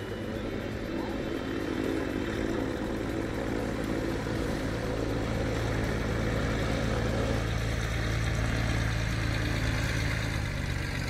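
Ercoupe 415-C light aircraft's air-cooled four-cylinder engine and propeller running at low taxi power, a steady engine note that grows gently louder over the first few seconds as the plane rolls closer.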